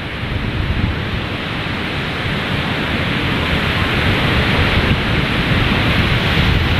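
Steady rush of sea surf and wind at the shore, with wind buffeting the phone's microphone, growing a little louder over the first few seconds.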